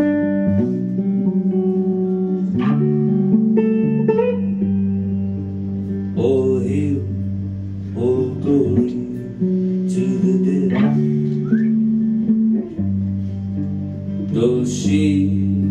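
Hollow-body electric guitar playing a slow song intro: picked chords ring out over held low notes that change every few seconds.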